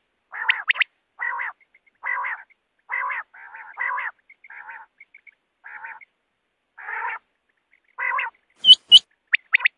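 Quail calling: a run of short, harsh, rasping notes about one a second, then two loud, sharp whistled notes near the end followed by quick high whistles.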